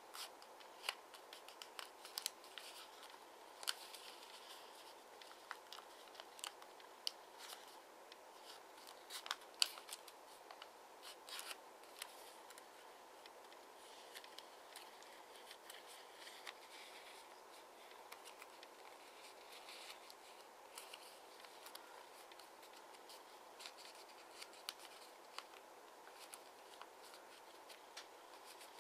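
Origami paper crinkling and rustling as fingers fold it and press its creases: scattered sharp crackles over a faint steady hiss, busiest in the first half.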